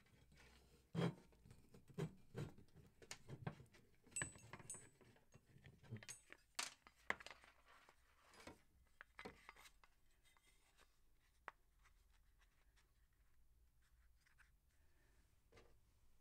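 Faint handling noise of a cut-down motorcycle rear fender and its bracket being turned over and fitted together on a workbench: scattered light clicks, knocks and scrapes of plastic and metal with wire rustle. These are busiest in the first ten seconds and then die away to faint room tone.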